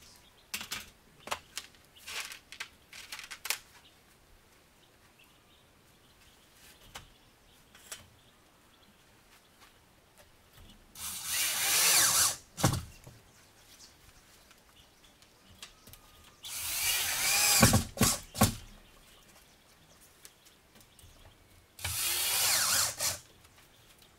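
A handheld power tool worked against a corrugated steel wall in three bursts, each one to two seconds long and a few seconds apart. A few light knocks and clicks come before them, in the first few seconds.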